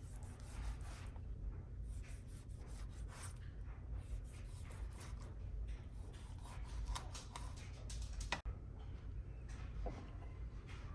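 A kitchen knife scoring the sides of a whole red snapper: irregular short scraping and cutting strokes over a low steady hum.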